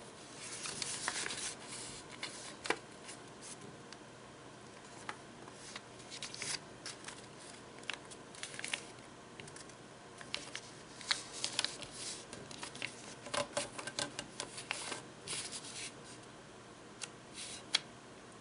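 A sheet of origami paper being folded and creased by hand: crinkling and rustling, with many short, sharp scratches as fingers run along the creases, in bursts with short pauses between.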